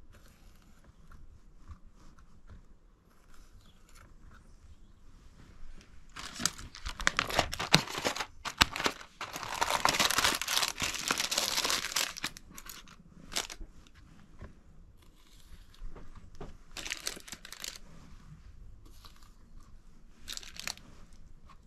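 Crinkly material being handled and torn: scattered crackles and clicks, with a louder few seconds of tearing and crinkling around the middle.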